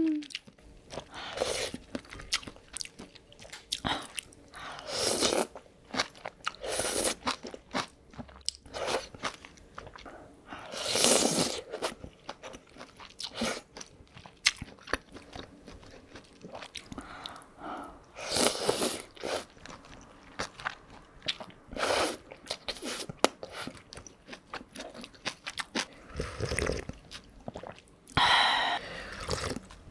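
Close-miked eating of mala tang: chewing of chewy Chinese glass noodles and vegetables with wet mouth clicks, broken every few seconds by a loud slurp of noodles or broth lasting about a second.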